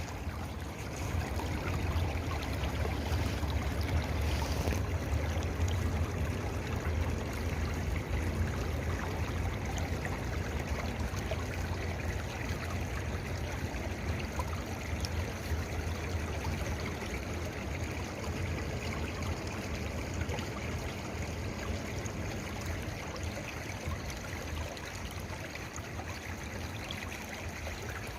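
Stream water flowing and trickling steadily, with a low rumble underneath.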